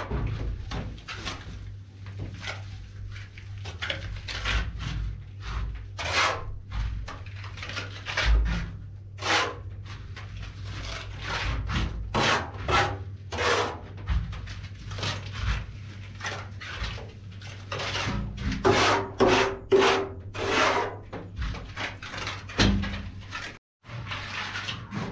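Plastering trowel scraping over wet cement render on a ceiling in repeated short rasping strokes, irregularly spaced, about one every half second to a second, over a low steady hum.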